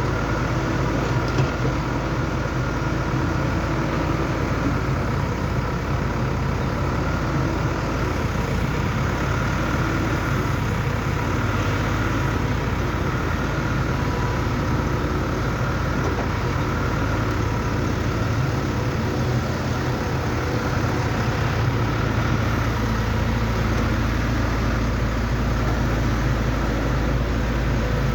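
Excavator's diesel engine running steadily, with no clear revs or stops.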